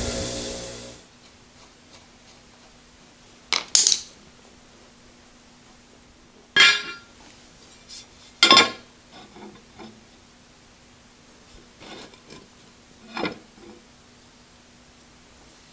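A wire wheel on a bench grinder brushing a steel plate, cutting off about a second in. Then several sharp metallic clanks and clinks a few seconds apart as the slotted steel plate is handled and set against the drill press's cast-iron bracket, over a faint steady hum.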